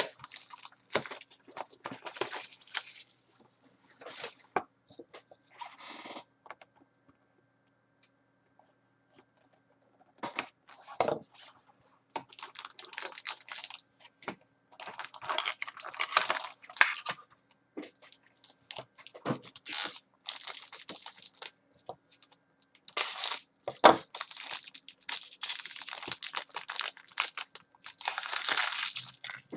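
Shrink wrap, cardboard and foil wrapping being torn and crinkled in irregular bursts as a sealed 2015-16 Upper Deck Black Diamond hockey card box is opened and a foil-wrapped pack is taken out. There is a quiet stretch of a few seconds about a third of the way in and a sharp knock a few seconds before the end.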